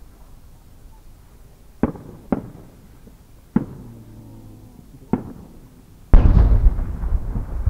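Fireworks: four sharp cracks spread over a few seconds from small bursts along a rising shell, then, about six seconds in, the loud boom of a 10-inch (shaku-dama) aerial shell bursting, rumbling on afterwards.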